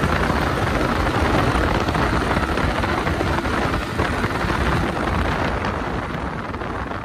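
Wind rushing over the microphone of a Yamaha MT-15 motorcycle on the move, mixed with engine and road noise, easing slightly near the end.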